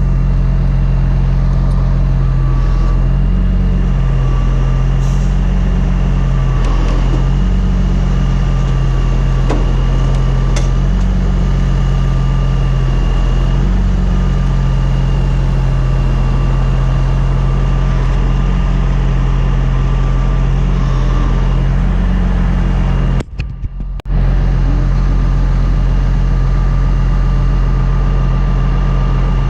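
Heavy recovery wrecker's diesel engine running steadily under load while its winches pull an overturned tanker upright, with a faint steady whine above the drone. The sound drops out briefly about 23 seconds in.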